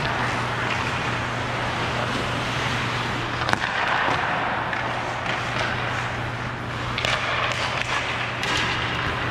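Ice skate blades scraping and carving on rink ice as a hockey player skates, over a steady low hum. A sharp click comes about three and a half seconds in.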